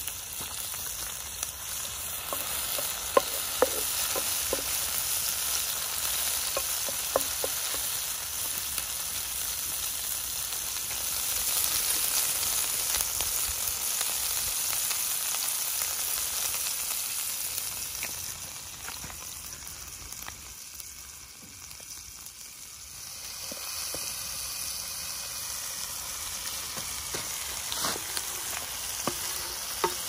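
Chopped green peppers frying in oil in a frying pan over a wood fire: a steady sizzle with a few sharp pops in the first several seconds. The sizzle quietens for a few seconds about two-thirds of the way through, then picks up again.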